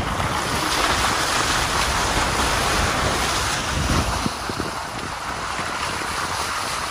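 Off-road 4x4 driving through mud and puddles: a steady rushing, splashing noise over a low rumble, easing off about four and a half seconds in.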